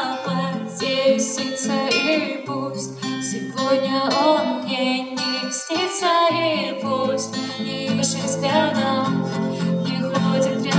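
A woman singing into a microphone, accompanied by a strummed acoustic guitar.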